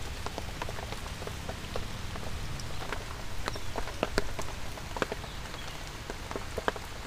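Rain falling steadily, with single raindrops striking close by as irregular sharp ticks over a constant hiss.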